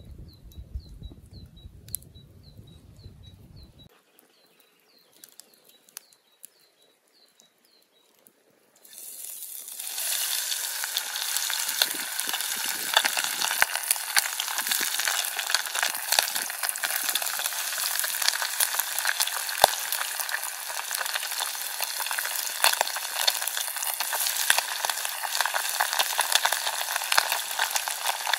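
Flour-coated chicken frying in hot oil: a steady crackling sizzle that starts about a third of the way in, after a quieter stretch.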